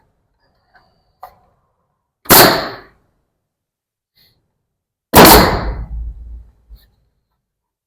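Two loud, sharp bangs about three seconds apart, each trailing off briefly: the last tight-fitting board of a wood-plank wall being fastened in place.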